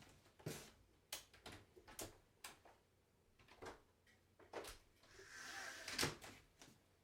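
Quiet household handling: scattered light knocks and clicks, about eight in all, with a brief rustle about five seconds in that ends in the loudest click. No vacuum cleaner is running.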